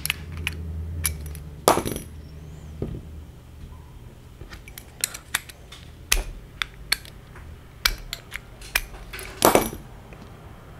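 Small metal parts of an RC car's center differential clicking and clinking as they are handled and set down on a work mat, with louder clatters about two seconds in and again near the end.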